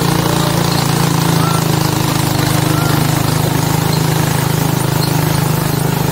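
Motorcycle engine of a tricycle (motorcycle with sidecar) running steadily with a rapid, even pulse as it rides along.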